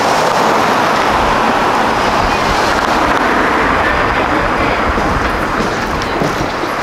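Loud, steady road-traffic noise from cars driving past over the rail crossing, a rushing hiss with no distinct tones.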